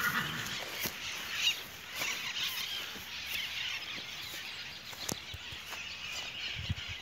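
Outdoor ambience: birds calling over a steady hiss of wind on the microphone, with a few sharp knocks.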